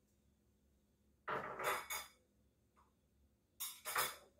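Two short bursts of clinking and clattering from a measuring spoon and seasoning containers being handled, about two seconds apart.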